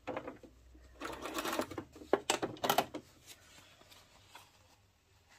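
Computerized sewing machine stitching a zigzag in a short run of about two seconds, starting about a second in, with a few sharp clicks as the fabric is taken out from under the presser foot.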